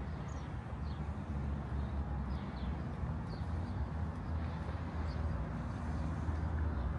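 Outdoor town street ambience: a steady low rumble with a few faint, short high chirps scattered through it.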